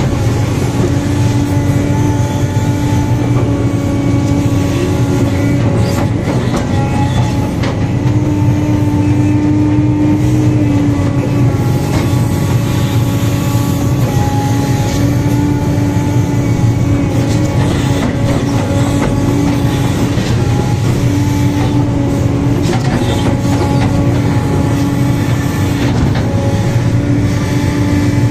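Sumitomo 490 excavator's diesel engine and hydraulics working under load, heard from the cab. There is a steady low rumble, with a whine that swells and eases every few seconds as the boom and bucket dig.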